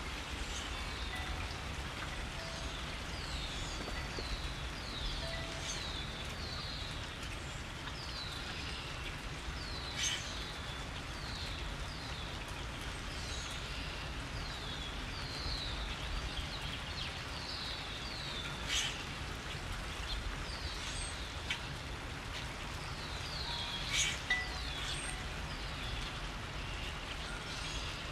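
Steady rain falling, with small birds calling over it: many short chirps, each sliding down in pitch, repeating throughout. Three louder sharp clicks stand out, spread through the stretch.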